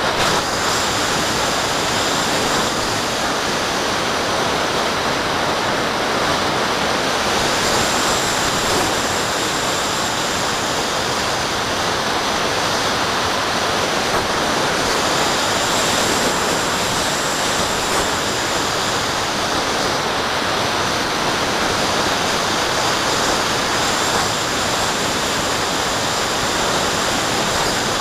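Steady rush of airflow over a microphone on the wing of a Graupner Cherry II electric glider in flight. A faint high whine comes and goes twice.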